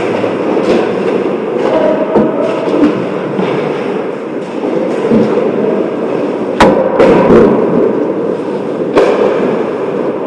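Ice hockey play: skate blades scraping across the ice and sticks working the puck, with two sharp cracks of stick or puck impacts, one about six and a half seconds in and one about nine seconds in.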